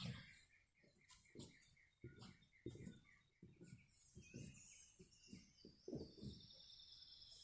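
Faint birdsong: a rapid run of repeated chirps, about four a second, gives way about halfway through to a higher warbling song. Soft, irregular low thuds sound underneath.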